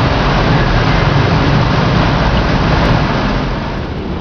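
Steady din of a running motor vehicle engine with street traffic noise, a low hum under a loud hiss. It dips briefly near the end.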